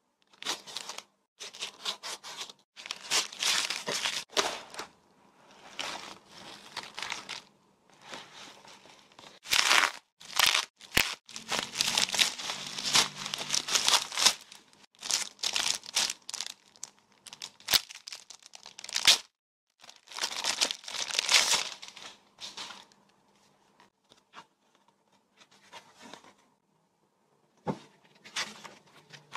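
Plastic packaging crinkling and tearing in stop-start bursts, with a few sharp clicks: a plastic mailer bag being cut with scissors and pulled open, then bubble wrap handled and pulled off a book. Quieter paper rustling near the end as the book's pages are turned.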